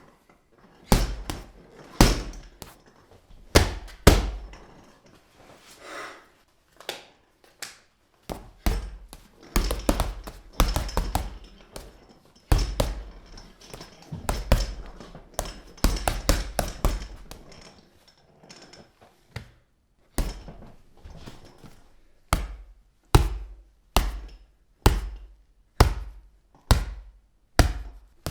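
Boxing punch sound effects: a long series of punches landing with heavy thuds, irregular and in quick flurries for much of the time. Near the end they settle into single hits roughly once a second.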